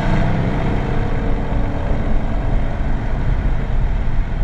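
Cammed Chevy SS 6.2-litre LS3 V8 running steadily, breathing through long-tube headers and an X-pipe into the stock bimodal muffler, with a low exhaust note.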